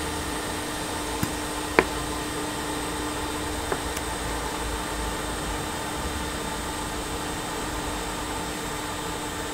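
Steady blowing hiss of a hot-air rework station heating a small resistor off a laptop motherboard. A few light clicks come in the first few seconds, the sharpest about two seconds in.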